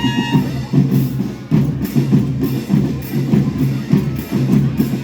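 School rhythm band's drum section playing a steady march beat, bass drums and snare-type strokes together. A held high note dies away in the first half second.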